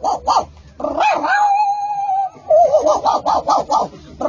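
A dog vocalising: a run of quick yips, a single held howl about a second long, then quick yips again.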